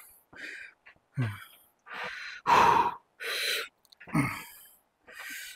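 A man breathing hard and grunting as he strains through reps on a hip abductor machine: forceful exhales about once a second, a few of them short grunts that fall in pitch.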